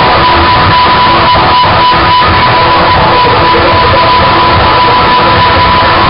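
Loud, dense, distorted noise music with a steady high tone through it.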